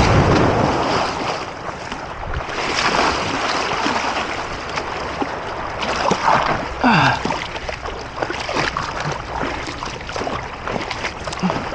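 Sea water splashing and surf washing close by, with wind on the microphone.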